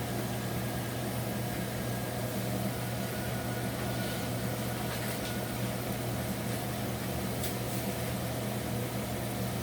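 Steady low hum of a running kitchen appliance motor, with a faint hiss and no breaks or changes.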